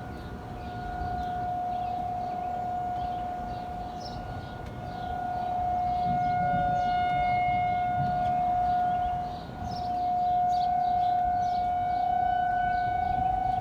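Outdoor civil-defense siren sounding a tornado warning: one steady tone of constant pitch whose loudness slowly swells and fades, dipping briefly about two-thirds of the way through.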